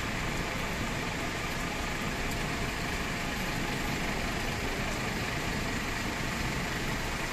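Steady outdoor city background noise: an even hiss over a low rumble, with no single sound standing out.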